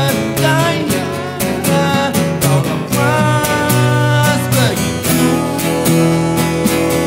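Live acoustic rock: two acoustic guitars strummed together under a man's singing voice. From about three seconds in he holds a long note, which slides down shortly before the halfway point.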